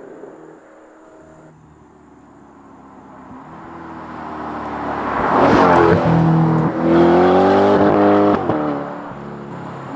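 Corvette C8 E-Ray's 6.2-litre V8 through a Valvetronic Designs titanium exhaust, heard from outside. It runs low at first, then revs up and gets much louder, with a brief dip in pitch and level partway through, before easing off near the end.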